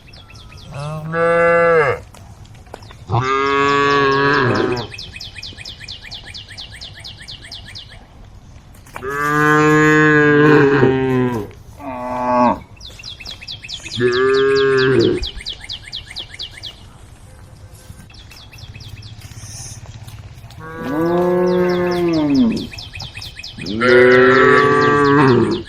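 Cattle mooing repeatedly, cows calling to the herd: about seven long, loud moos, some following close on one another and others spaced several seconds apart.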